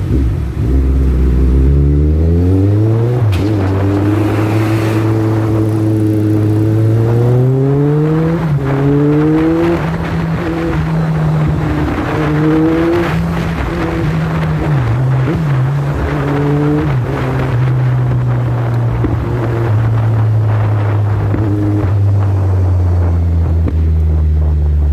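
Kawasaki Z1000's inline-four engine pulling away with the revs climbing over the first few seconds, then cruising at a steady pitch with a few brief dips as gears are changed, over a steady rush of wind and road noise.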